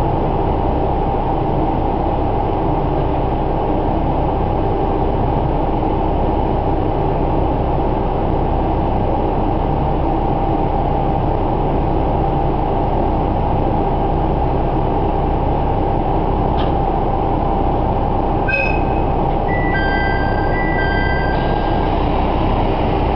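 Diesel railcar idling steadily while standing at a station, heard from inside the passenger cabin. Near the end a short run of electronic chime tones sounds over the engine.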